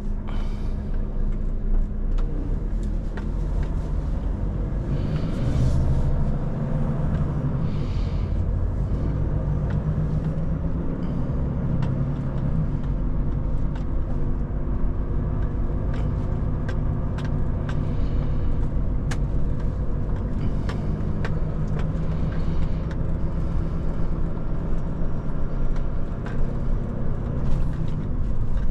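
Volvo FH540 truck's 13-litre straight-six diesel running steadily on the road, a low engine drone with scattered light clicks and knocks.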